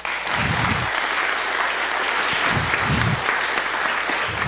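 Audience applauding: steady clapping that starts right away and holds through.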